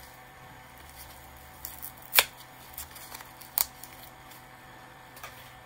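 Gloved hands handling a small plastic zip-lock bag of glitter: light rustling with a few sharp clicks, the loudest about two seconds in and another about a second and a half later.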